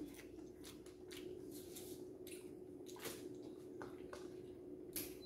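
Faint, scattered wet squishes and small clicks of fingers pressing rice and food together on a plate, eating by hand.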